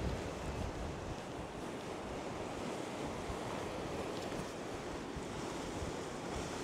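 Lake waves washing steadily against a rocky shoreline, with light wind on the microphone.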